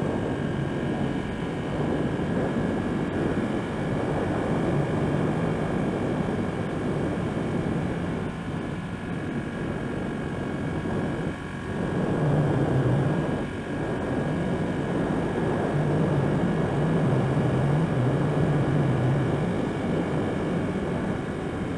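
Ducati 1199 Panigale S's Superquadro V-twin engine running steadily under way, mixed with wind rush. The engine note dips briefly about halfway through, then comes back up and wavers. The bike is running on a freshly flashed Tuneboy fuel map, which the rider finds smooth through the rev range.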